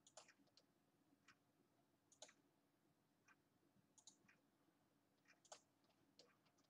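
Faint computer mouse clicks, about a dozen single clicks scattered irregularly, some in quick pairs, over near silence, as automation nodes are placed on a track.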